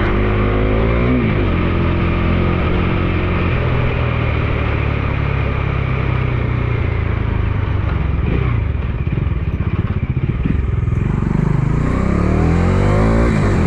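Bajaj Dominar 250's single-cylinder engine running on the road. The pitch drops about a second in, holds steady, then climbs over the last few seconds as the bike accelerates, with a brief dip near the end.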